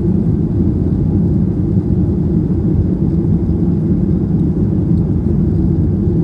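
Steady cabin noise inside a Boeing 737-800 climbing out after takeoff: the CFM56-7B engines at climb power giving a low, even rumble, heard from a rear-row window seat.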